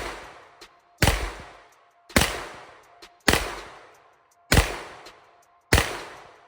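A semi-automatic gun fired in a steady, aimed string: six shots about a second apart, each with a short echoing tail.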